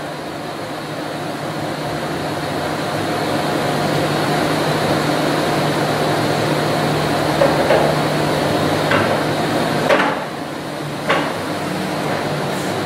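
Shop press pushing the spool of a hydraulic rotary manifold into its housing, with a few sharp metal knocks in the second half over a steady mechanical hum.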